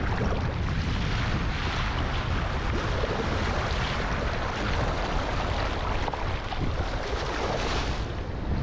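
Ocean waves washing and sloshing, with wind buffeting the microphone in a steady low rumble.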